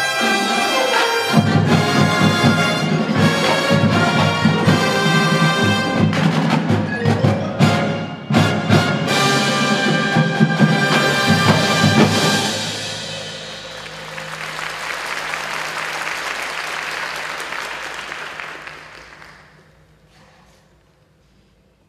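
Marching band playing: brass with front-ensemble mallet percussion such as marimba and glockenspiel, and many sharp percussion hits. About twelve seconds in the music drops away into a soft rushing wash that swells and then fades out, leaving it nearly quiet at the end.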